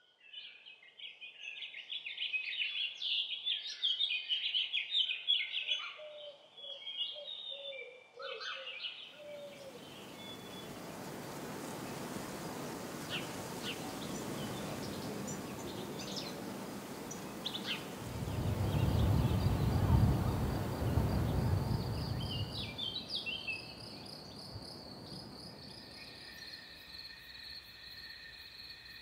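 Countryside ambience: birds chirping in quick bursts for the first third, then a broad rush of noise that swells into a deep rumble about two-thirds through and fades, giving way to a steady chorus of crickets near the end.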